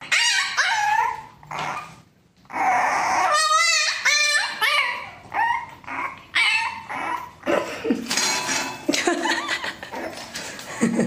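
A French bulldog puppy yipping and whining in a string of short high calls, with a brief pause about two seconds in and one wavering, quavering howl just after it.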